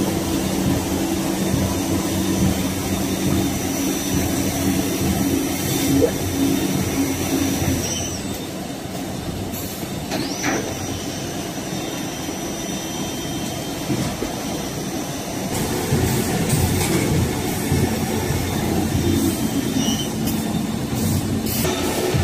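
Veneer peeling and stacking line machinery running: a steady mechanical din with a low motor hum, changing in character about a third of the way in and again past the middle.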